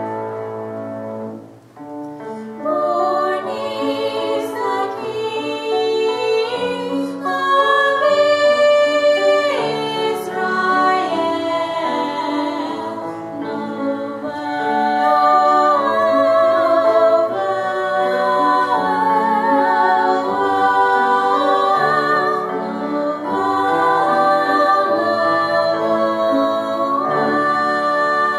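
Two female singers performing a duet with flute and grand piano accompaniment. The music drops away briefly about two seconds in, then resumes.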